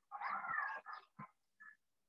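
Faint whining from a pet animal: one drawn-out call that rises and falls in pitch, followed by a few short, softer sounds.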